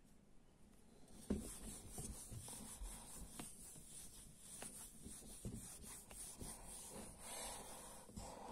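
Whiteboard eraser rubbing back and forth across a whiteboard, a faint steady scrubbing with occasional light knocks, starting about a second in.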